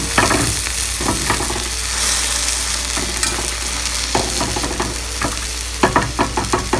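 Oil and ghee sizzling under a stuffed paratha frying in a hot pan, with scrapes and taps of a perforated metal spatula pressing it down. A quick run of spatula taps comes near the end.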